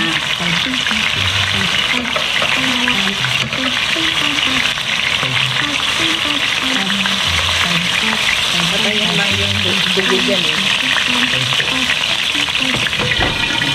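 Slices of beef liver sizzling steadily in hot oil in a frying pan, being seared until only half-cooked.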